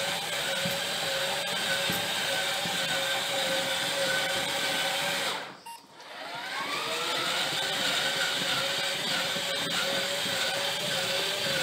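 Track drive of a 1:8 scale Caterpillar 390D model excavator running its tracks: a steady mechanical whine over the rattle of the moving track chains. About halfway through it stops, then starts again, the whine rising in pitch as it speeds up.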